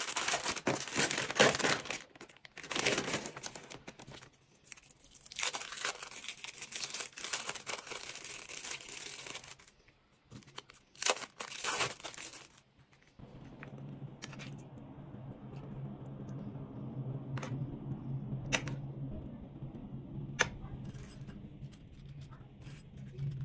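Thin plastic packaging crinkling and tearing in repeated bursts as a resealable wrap pouch is opened and a cheese slice is peeled from its plastic film. From about halfway on there is a low steady hum with a few light clicks.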